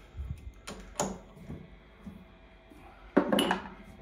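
Metal clunks and knocks as a lathe chuck is worked loose and handled on the spindle, with a louder metallic clank that rings briefly about three seconds in.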